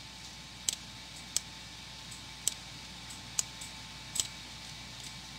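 Computer mouse buttons clicking, about six sharp clicks roughly a second apart, as gradient handles are grabbed and released in a drawing program, over a faint steady hum.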